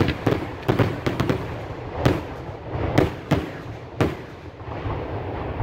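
Aerial salute shells bursting in a fireworks finale. A quick volley of sharp bangs in the first second or so is followed by four single loud reports spaced about a second apart, each with a rolling echo, and the noise then fades to a low rumble.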